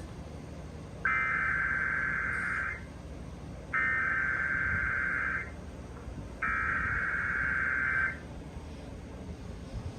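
Emergency Alert System Required Weekly Test: the SAME header's digital data bursts, three harsh, buzzy two-tone bursts of about a second and a half each, separated by pauses of about a second. The three repeats carry the coded alert header announcing the test.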